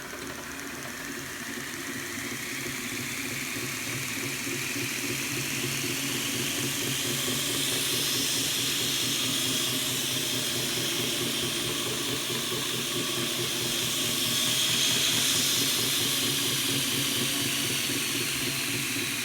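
Reeder Products belt grinder running on its variable-frequency drive: a rising whine as it speeds up over the first several seconds. It holds near full speed, loudest about three-quarters of the way through, and winds down in pitch near the end.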